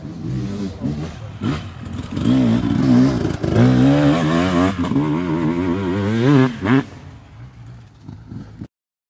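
Enduro dirt bike engine passing close on a muddy track, the throttle opened and closed again and again so the pitch rises and falls. It is loudest from about two to seven seconds in, then fades, and the sound cuts off abruptly near the end.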